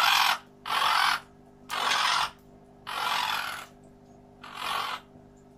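Pet parrots squabbling over food: five harsh, rasping squawks about a second apart, the last ones a little weaker.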